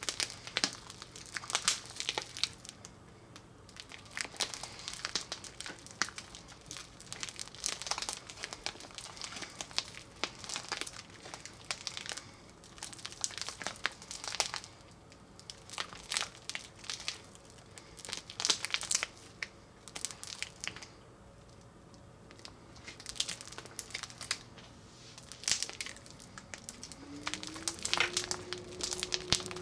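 Hands squeezing and stretching slime, with irregular clusters of wet crackling and popping and short pauses between handfuls. Near the end a steady low tone slides up in pitch and holds.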